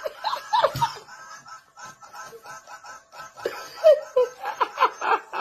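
A person's laughter: quick, repeated short giggles, growing louder about three and a half seconds in.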